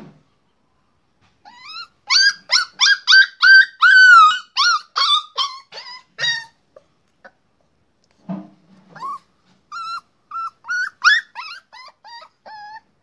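Puppy yipping and whining in quick high-pitched calls, about three a second, each call arching and falling in pitch. A pause comes midway, and then a second run of yips.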